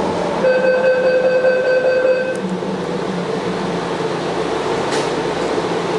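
Taipei Metro Wenhu line Bombardier rubber-tyred train running, heard from inside the car: a steady running noise. About half a second in, a steady high tone sounds for about two seconds, and a couple of faint clicks follow. The uploader says this train makes an abnormal noise while running.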